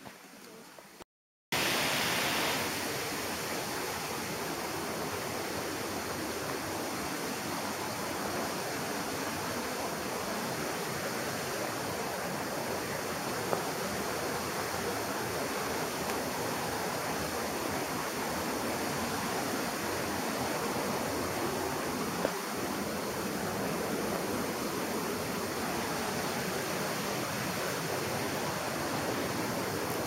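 Steady rushing of a mountain river and waterfall, a constant even roar that starts abruptly about a second and a half in after a brief silent gap.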